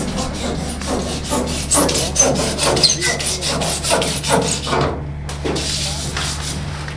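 Quick, even scraping strokes of a long bar shaving cured closed-cell spray foam off wooden wall studs, about five or six rasps a second, stopping about five seconds in. A steady low hum runs underneath.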